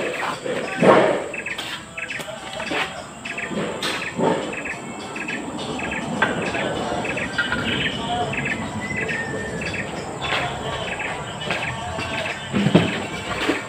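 Mortar and concrete-block work: a trowel scraping and knocking against blocks and a mortar bucket, in scattered strokes, the loudest about a second in and near the end. Behind it, a short chirp repeats steadily about every half second.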